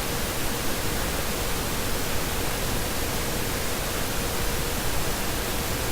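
Steady even hiss of background noise with a faint, steady tone underneath; nothing else happens.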